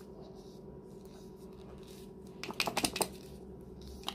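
A lidded jar packed with green peppers being handled and turned: a short run of clicks and rattles about two and a half seconds in, and a single click near the end, over a faint steady hum.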